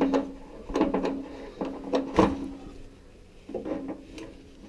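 Metal knocks and clicks as an element removal wrench turns a loosened water heater element out of the steel tank: about four sharp knocks in the first two and a half seconds, then two fainter ones near the end, with a low ringing tone lingering between them.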